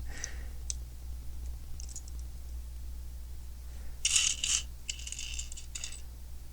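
Loose plastic Lego pieces clicking and rattling against each other as a hand sifts through them, a few light clicks at first, then a busier stretch of clatter past the middle.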